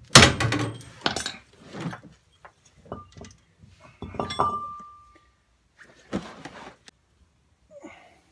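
Hammer blows on a chunk of aluminium held against the worn kingpin of a Morris Z van's front axle, driving the pin out without damaging its threads. A hard metallic knock right at the start and a couple more blows follow, then lighter knocks and clinks, one about four seconds in leaving a brief ringing tone.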